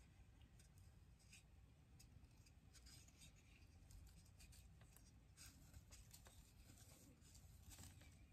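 Near silence with faint, scattered small taps and rubs from hands handling a wooden craft spoon.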